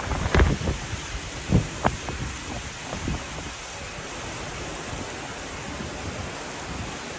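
Heavy rain falling steadily, an even hiss. A few dull thumps hit the microphone in the first three seconds.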